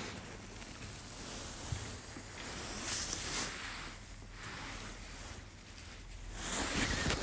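Rustling and scuffling in wood-shavings bedding as an otter and a skunk scamper about. The rustling comes in soft bursts and is loudest about three seconds in and again near the end.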